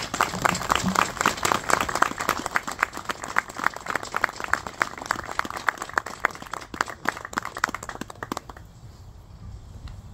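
A small crowd applauding, many hands clapping at once. The clapping dies away about eight and a half seconds in.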